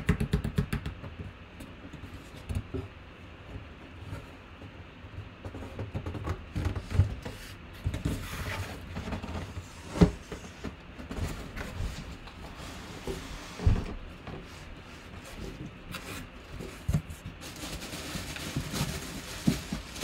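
A cardboard box being handled and opened by hand: a quick run of scraping taps in the first second, then flaps and sides knocked and scraped, with a sharp thump about halfway through. Near the end comes a rustling of the plastic wrapping as a helmet is lifted out.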